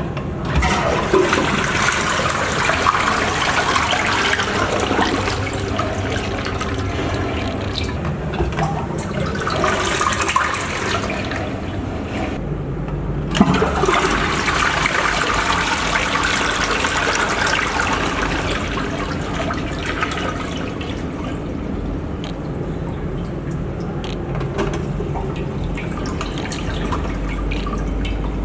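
Rushing water runs almost throughout. It breaks off briefly about twelve seconds in and starts again with a sharp knock.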